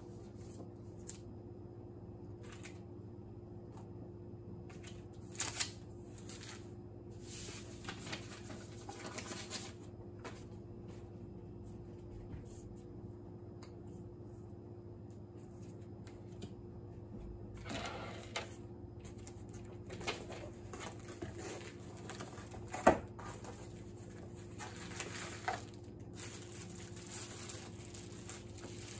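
Quiet handling of paper and plastic packaging, with short rustles and crinkles and light taps on the table. One sharp tap about three-quarters of the way in is the loudest sound. A steady low hum runs underneath.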